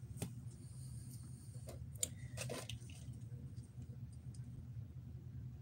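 A few faint clicks and taps of a small HO-scale model truck and trailer being handled and set on a display turntable, the sharpest about two seconds in, over a low steady hum.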